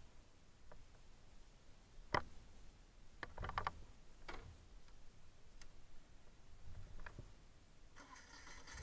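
Faint, scattered clicks and taps of someone moving on and handling a parked motorcycle with its engine off, with a quick run of several clicks a little past three seconds in. A faint steady hum starts near the end.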